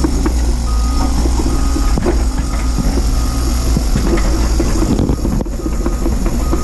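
Doosan DX180 excavator's diesel engine running under load, with a warning alarm beeping at an even pace over it. The beeps are clearest in the first two seconds and return near the end.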